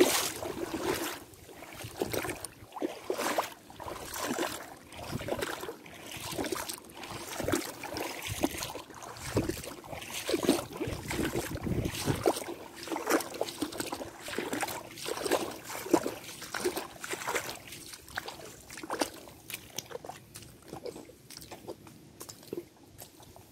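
Water sloshing and splashing in irregular short bursts, about one or two a second, growing fainter near the end.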